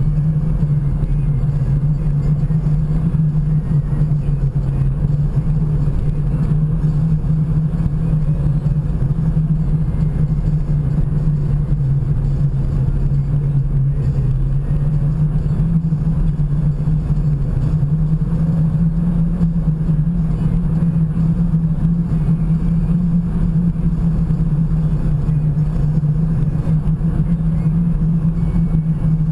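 Car driving at a steady speed on a paved road: a steady low drone of engine and tyre noise.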